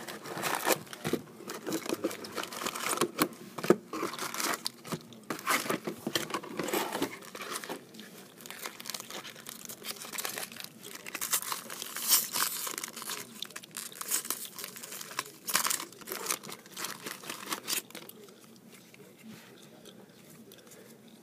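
Foil-wrapped trading card packs being crinkled and torn open by hand, a dense run of crackling rustles and tears that dies down near the end.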